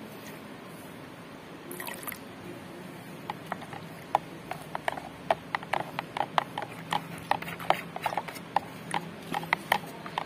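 Blue glass-cleaner liquid being stirred by hand in a plastic measuring jug, mixing in the perfume just added. After a quiet first second or two come irregular small splashes and clicks, growing more frequent from about three seconds in.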